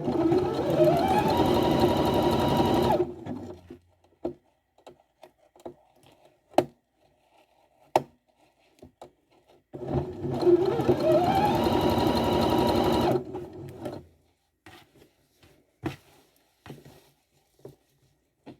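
Electric sewing machine stitching hair wefts onto a wig cap, in two runs of about three seconds each near the start and again about ten seconds in. Each run whirs up to speed and then holds steady. Short clicks and taps from handling the work come between and after the runs.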